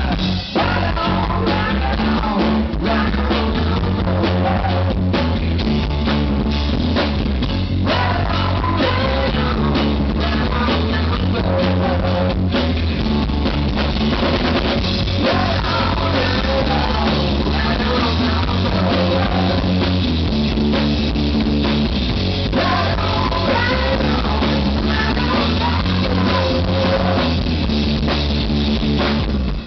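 Live rock band playing, with electric guitars, bass and a drum kit keeping a steady beat, and a female lead singer.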